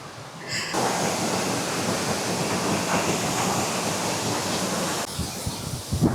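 Steady rush of a waterfall, which begins abruptly just under a second in and falls away about five seconds in.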